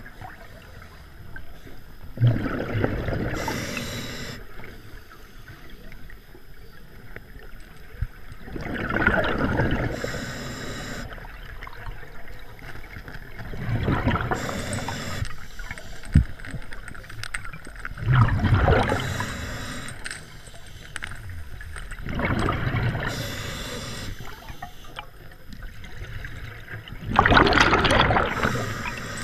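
Scuba diver breathing through a regulator underwater: six bubbling exhalations about every four to five seconds, each followed by a short hiss. There are also two sharp clicks.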